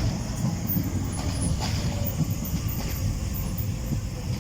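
Docklands Light Railway train running at the platform, a steady low rumble.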